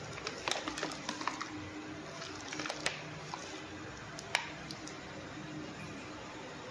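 Plastic food pouches crinkling and crackling in the hand as they are handled and turned over, in scattered bursts with a sharper crackle about four seconds in, over a steady low hum.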